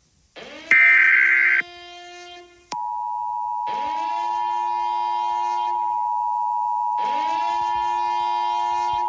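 Emergency Alert System signalling: a final burst of screeching digital data-header tones about a second in, then the steady high two-tone EAS attention signal from about three seconds in. Under it a horn-like tone swoops up and holds, repeating about every three seconds.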